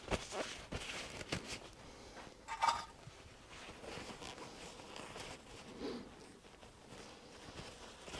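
Quiet handling sounds of a paper shop towel rustling and small clicks as something is wiped by hand, with one brief louder sound about two and a half seconds in.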